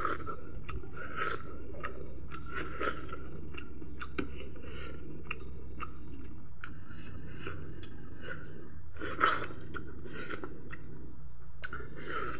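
A person chewing and biting meat off a chicken leg bone close to the microphone, with many short clicks and one louder bite about nine seconds in, over a steady low hum.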